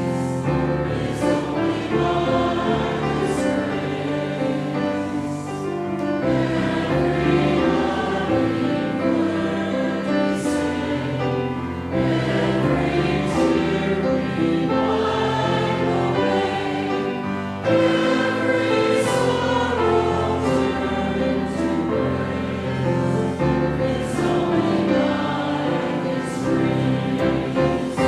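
Church choir singing a hymn in held, chorded notes, with instrumental accompaniment.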